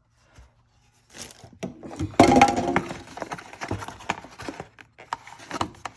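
A string of irregular knocks and clatter from objects being handled, starting about a second in, loudest about two seconds in.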